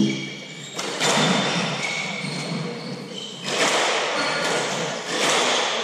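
Hardball doubles squash rally: the ball is struck by rackets and smacks off the court walls, a hard thump at the start and then several more hits a second or two apart, each ringing on in the court's echo.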